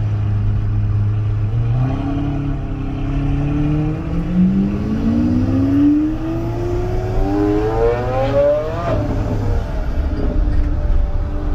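Lamborghini Aventador's V12 accelerating hard: the engine note climbs steadily for several seconds and drops off abruptly about nine seconds in at an upshift. It is heard through the windshield from inside a following car.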